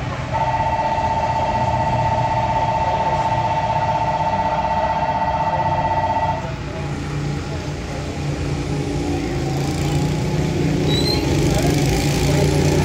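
A loud, steady buzzer tone sounds for about six seconds and cuts off suddenly. Then small go-kart engines start running and grow louder toward the end.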